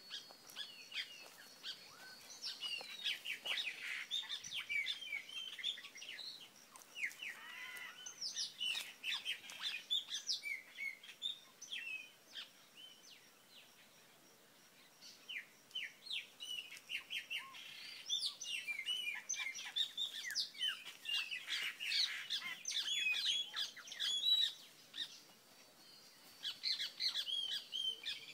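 Several birds chirping and calling at once: many short, quick, mostly falling notes that overlap one another, with a lull of a few seconds about halfway through.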